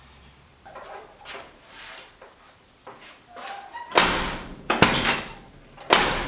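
Door of a 1971 Chevy C20 pickup being worked to test a newly fitted outside door handle: light metal rattles from the handle and latch, then three loud metal clunks of the door and latch in the second half.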